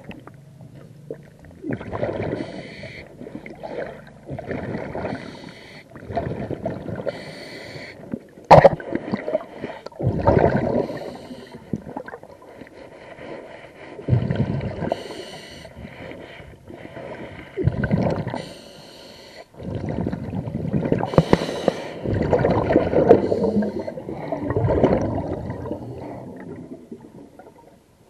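A diver breathing through a regulator underwater, in repeated cycles a few seconds apart: hissing inhalations and bubbling, gurgling exhalations. A single sharp click sounds about a third of the way in.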